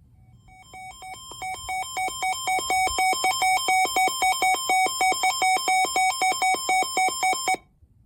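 Electronic alert tone: rapid beeps switching between two pitches, about five a second. It grows louder over several seconds, then cuts off abruptly.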